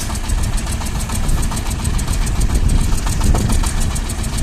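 Shifeng SF-240 mini tractor's diesel engine running steadily with a rapid, even clatter while it drives a rotary tiller through the soil.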